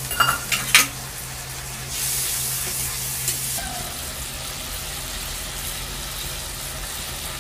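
Thin fish curry sizzling and simmering in an aluminium kadai over a wood fire, a steady hiss. Near the start, a few sharp metallic clinks as a steel bowl is set down.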